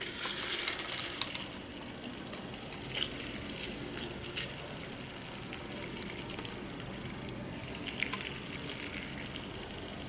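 Filtered water poured from a plastic filter jug into a stainless-steel kettle, splashing through dried linden leaves in its strainer. The pour starts suddenly and is loudest in the first couple of seconds, then settles into a steadier, quieter trickle with small splashes.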